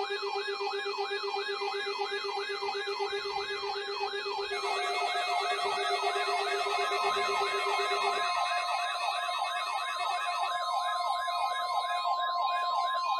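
Electronic siren-like alert tone: a fast rising-and-falling pitch sweep repeated about three times a second over a steady low hum-like tone. About four and a half seconds in, a second, lower sweeping layer joins and the sound gets louder; the steady low tone drops out about eight seconds in.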